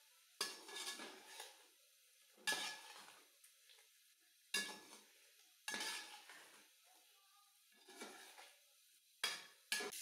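A slotted metal spoon scraping and knocking against a metal karahi as chicken is stirred with ground spices. There are about seven separate strokes a second or two apart, with quiet gaps between.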